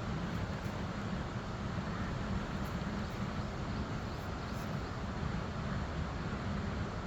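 Steady rushing of the fast-flowing Lidder River, an even, unbroken noise.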